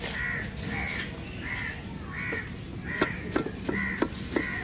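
A crow cawing over and over, a short call about every two-thirds of a second. From about three seconds in, a knife chops quickly on a wooden board as red onion is sliced, with sharp knocks.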